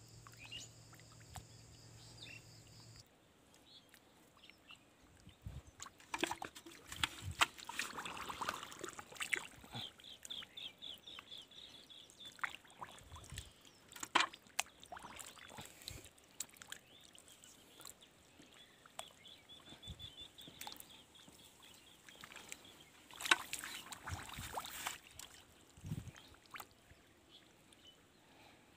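A hand groping and splashing in shallow muddy water, with irregular sloshing and squelching, a few louder splashes about a third of the way in and again near the end.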